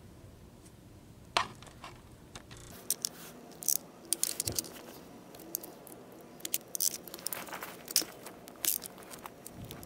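Hand socket ratchet loosening the case bolts on a lawn tractor transaxle, with irregular clicks and metallic ticks from about three seconds in.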